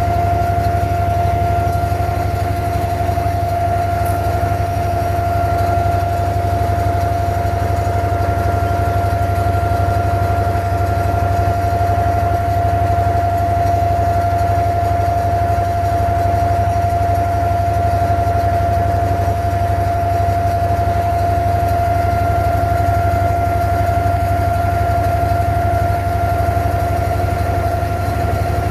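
Inboard diesel engine of a wooden abra water taxi running steadily while the boat is underway: a low drone with a steady whine over it.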